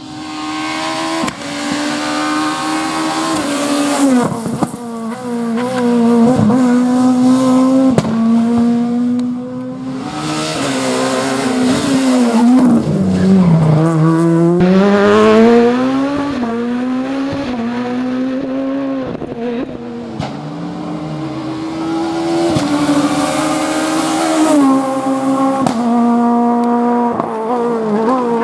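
Renault Clio S1600 rally car's high-revving 1.6-litre four-cylinder engine driven hard, its pitch holding, dropping and climbing again through gear changes and braking. A few sharp cracks cut across the engine note.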